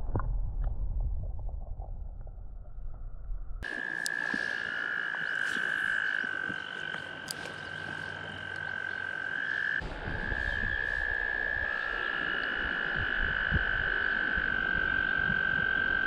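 For the first few seconds a muffled underwater rumble of river water; then a long, steady, high-pitched trilling chorus of frogs, several voices at slightly different pitches overlapping, over a low wash of moving water.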